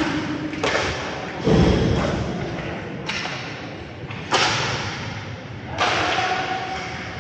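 Five hard knocks and thuds from roller hockey play, each ringing out in the echoing arena; the loudest is a deep thud about a second and a half in.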